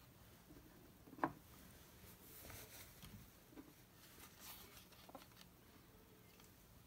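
Faint handling of a knife in its leather sheath: a light knock about a second in, then soft rubbing and scraping of leather as the sheathed knife is turned over in the hands.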